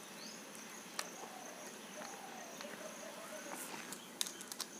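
Faint small clicks of a precision screwdriver and the trimmer's steel blade being handled as the blade screw is taken out: one sharp click about a second in and a few quick clicks near the end. A faint steady high whine runs underneath.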